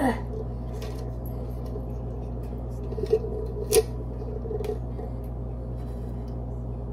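A utensil scraping thick cheese sauce out of a pot onto spaghetti in a glass baking dish: a few soft scrapes and clicks, the sharpest a little under four seconds in, over a steady low hum.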